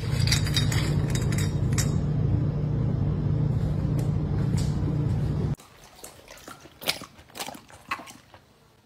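Refrigerator door ice dispenser running with a steady motor hum that cuts off suddenly about five and a half seconds in. A few fainter, scattered clicks and crunches follow: the dog chewing ice cubes.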